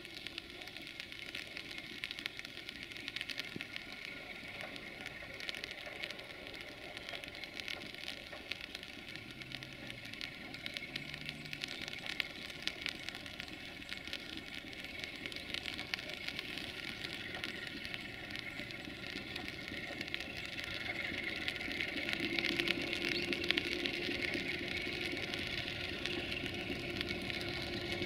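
Class 060-DA diesel-electric locomotive's Sulzer diesel engine approaching slowly, faint at first and growing louder with a steady engine note over the last several seconds. A steady crackling hiss runs underneath.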